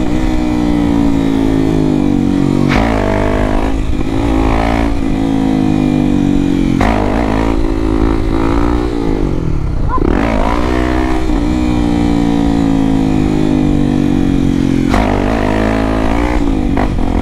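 Honda XRE 300 single-cylinder engine with an aftermarket Dore exhaust running under way, its pitch changing several times as the rider works the throttle and gears.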